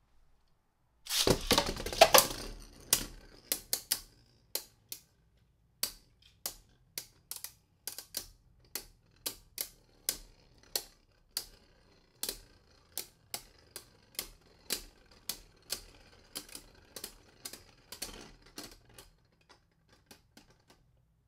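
Two Beyblade Burst spinning tops, Legend Spriggan and Tornado Wyvern, launched into a clear plastic stadium. About a second in there is a dense clatter of hits. Then come repeated sharp clacks as the tops collide, one or two a second, growing fainter near the end as the tops lose spin.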